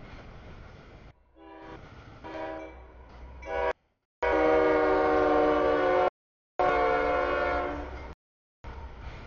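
CSX freight locomotive's air horn sounding for a grade crossing. A few shorter, quieter notes grow louder, then come two long, loud blasts of the horn's chord, over the low rumble of the passing train.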